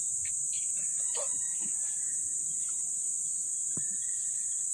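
Steady high-pitched insect chorus, with a few faint short calls and a sharp click near the end.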